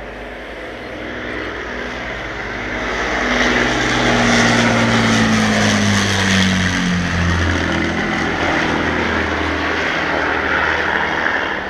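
Avro Lancaster bomber's four Rolls-Royce Merlin V12 engines running in a low fly-by, growing louder over the first few seconds and dropping in pitch as the aircraft passes overhead, about four to seven seconds in.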